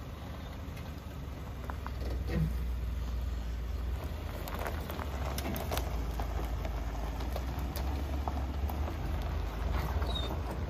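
Ford F-150's 3.5-litre V6 gasoline engine idling steadily just after start-up, a constant low rumble. Scattered light clicks and crunches are heard over it.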